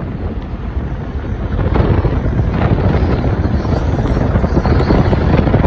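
Low rumble of a moving car with wind buffeting the microphone, heard from inside the car; it grows louder about two seconds in.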